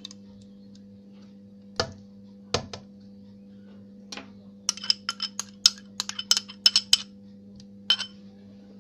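A spoon clinking and scraping against a ceramic bowl as thick yogurt is scraped out into a blender jar. There are a few separate knocks at first, then a quick run of about a dozen ringing clinks over two seconds and one more near the end, over a steady low electrical hum.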